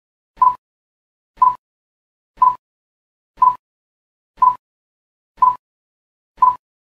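Countdown timer sound effect: seven short, identical ticks, evenly one a second.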